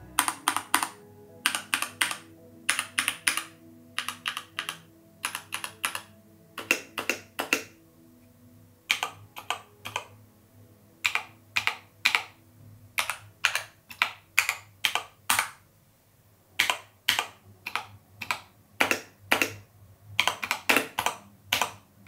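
Typing on a Keychron K2 mechanical keyboard with Gateron Red linear switches: irregular runs of sharp keystrokes with short pauses, getting quicker and denser near the end.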